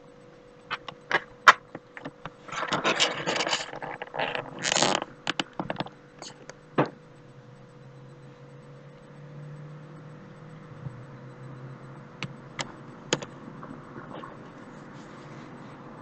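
A quick series of sharp clicks and knocks mixed with bursts of scraping or rustling in the first several seconds, then a faint steady hum with a few scattered clicks.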